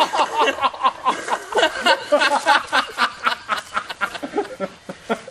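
Men laughing in quick, rhythmic bursts.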